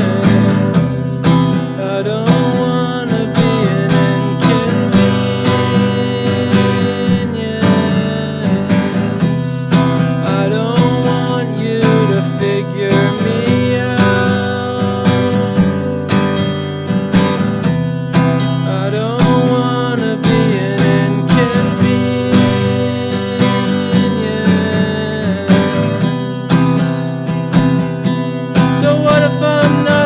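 Steel-string acoustic guitar strummed in a steady rhythm, with a man singing a slow melody over it.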